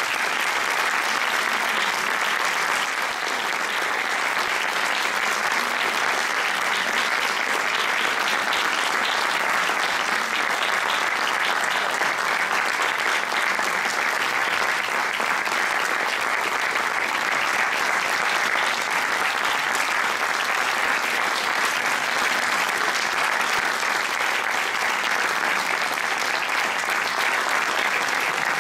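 Audience applauding, a dense and steady clapping that keeps up without letting off.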